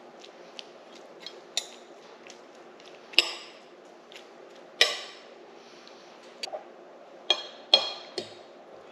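Metal cutlery clinking and scraping against a plate in a few sharp, irregular strikes that ring briefly, the loudest about three and five seconds in and several more near the end, as the cooked fish is cut into and served.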